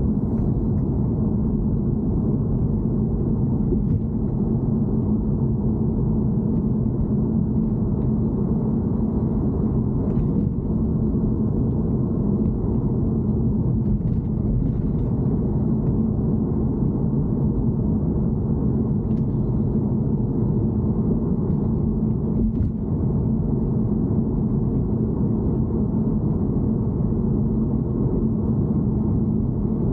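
BMW E90 3 Series making a steady low rumble with a constant hum, the abnormal noise its owner is recording; a few faint ticks sound over it.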